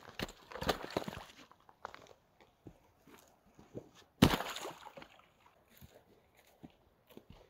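Chunks of wood and branches dragged out of a muddy rut and thrown aside: rustling and crunching, with boots squelching in mud. One heavy thud about four seconds in as a thrown piece lands on the ground.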